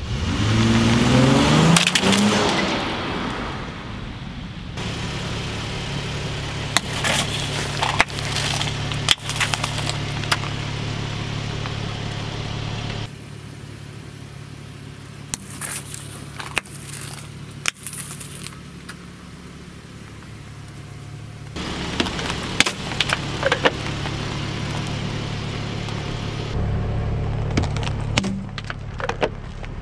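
Dodge Challenger engine revving up with a rising pitch, then running steadily at low speed while its tyres roll over plastic cups and containers. Several sharp cracks and crunches come from the plastic breaking under the tyres, in clusters a few seconds apart.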